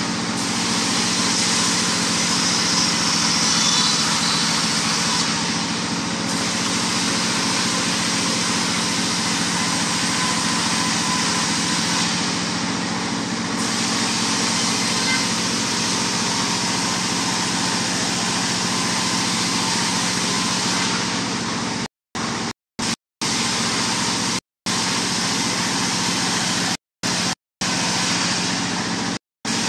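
Stationary single-cylinder diesel engine running steadily, belt-driving a sawmill band saw, with the saw's steady hiss on top. Near the end the sound cuts out abruptly several times for a fraction of a second.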